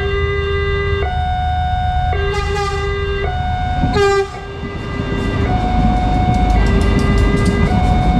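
Railway level-crossing warning siren alternating between two tones, switching about once a second. A train horn sounds about two seconds in and again around four seconds, then the train passes with a rumble and rapid, regular clicking of wheels over the rail joints under the siren.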